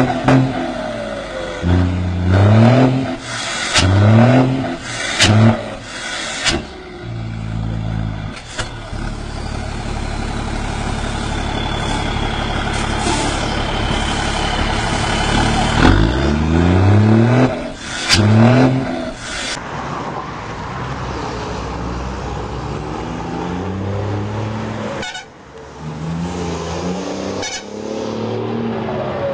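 Iveco truck diesel engines with a comb fitted in the turbo, revving up in short rising bursts several times, with a steadier run in between and a high whistle gliding slightly down in the middle.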